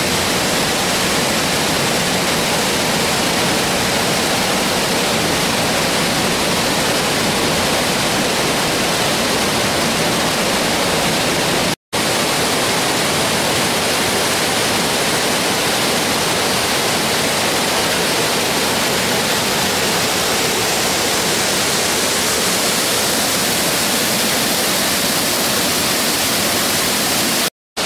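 Waterfalls and cascades of a rocky mountain stream, water pouring and rushing steadily and loudly. The sound cuts out for an instant twice, about twelve seconds in and near the end.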